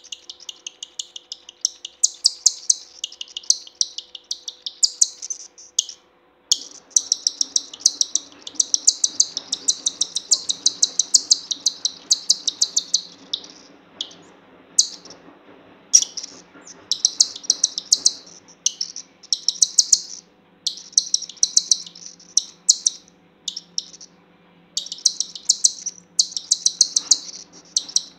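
Cockatiel chick giving rapid, high-pitched food-begging chirps while being hand-fed formula from a syringe. The chirps come in long fast runs with a few brief pauses.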